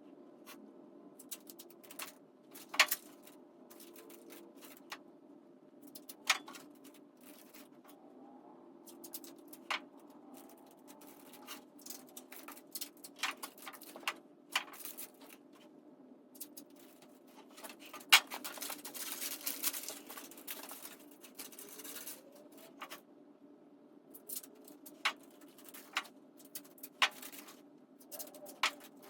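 Scattered clicks, scratches and rustles of masking tape and paper being handled as a tire is wrapped and taped over, above a faint steady hum. A longer stretch of paper rustling comes about 18 seconds in.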